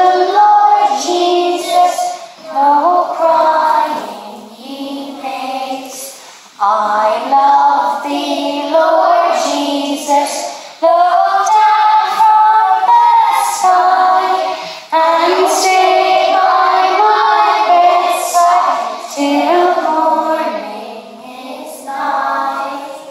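Children's voices singing a song, line after line, with short breaks between phrases.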